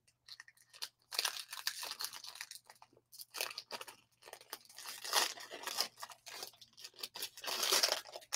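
A foil trading-card pack wrapper being crinkled and torn open by hand, in three bursts of rustling with short pauses between them.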